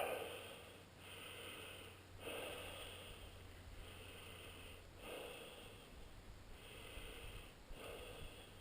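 A person breathing close to the microphone, a soft hiss in and out about once every second or so.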